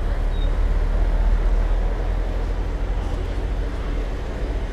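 Low rumble of motor traffic on a city street, easing off through the second half, with people's voices faintly underneath.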